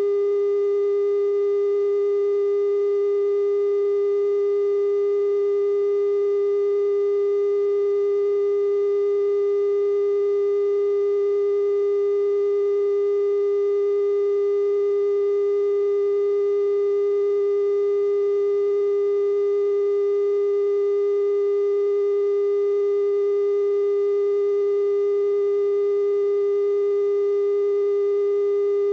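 Television station's 420 Hz test tone, sent with color bars while the station is off the air after sign-off: one steady, unbroken pitch with faint higher overtones.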